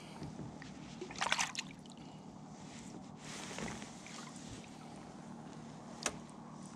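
Water sloshing and lapping against a small fishing boat, with a steady low hum underneath. A short clatter of sharp clicks comes about a second in, and a single sharp click near the end.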